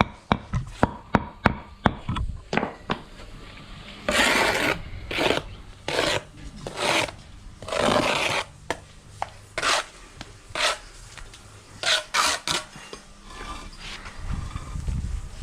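A steel bricklaying trowel scraping mortar against concrete blocks in a series of short rasping strokes, after a quick run of sharp taps in the first couple of seconds.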